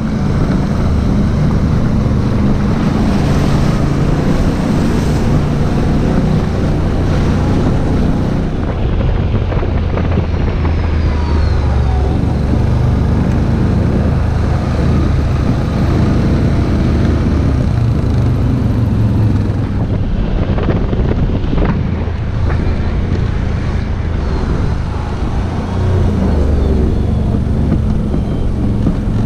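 Off-road vehicle engine running steadily under way, its pitch shifting a little with the throttle, with wind buffeting the microphone.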